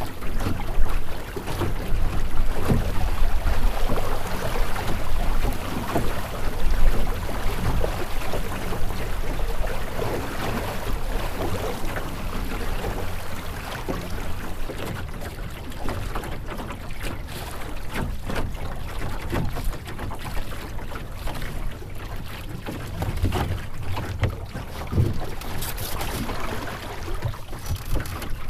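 Wind buffeting the microphone with a low rumble, over water rushing and slapping irregularly against the hull of a Melonseed skiff sailing through chop.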